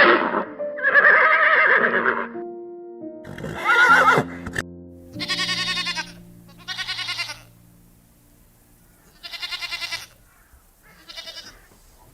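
Farm animal calls over background music: a few long calls in the first half, then a string of shorter quavering calls, growing fainter toward the end.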